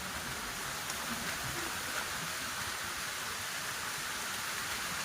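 Storm rain pouring steadily, an even hiss of falling water with a few faint drop ticks.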